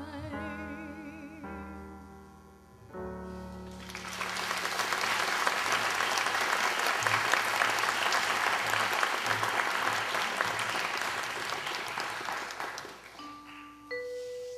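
The band's closing chords end the song, then audience applause for about nine seconds. Near the end, a few single bell-like tones sound one after another.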